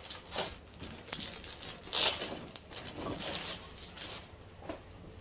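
Plastic packaging crinkling and rustling as a clothing item is unwrapped by hand, in a string of rustles with the loudest about two seconds in.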